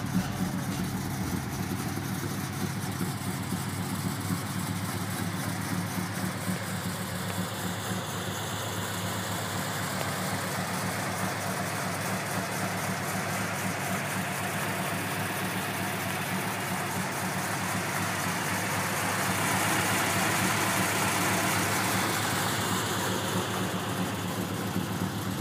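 1968 Plymouth Road Runner's V8 idling steadily.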